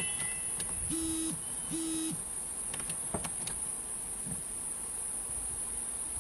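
A steady, high-pitched insect chorus buzzing throughout. Early on, two pairs of short low hoots sound, and a few sharp knocks come about three seconds in.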